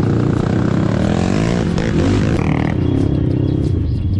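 An off-road vehicle's engine running hard on a dirt trail, its pitch rising and falling with the throttle.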